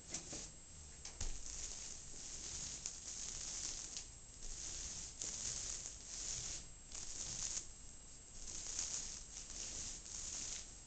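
Paint roller on an extension pole being rolled back and forth across a ceiling: repeated sticky, crackling hiss strokes, each about a second long.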